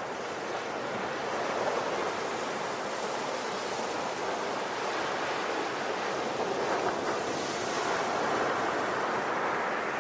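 Ocean waves breaking and washing on the shore in a steady, continuous surge, swelling gently now and then.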